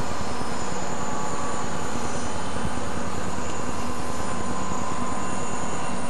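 Several Southern Pacific diesel-electric locomotives working together, their engines running with a loud, steady drone and rumble as the lead unit comes up and passes close by.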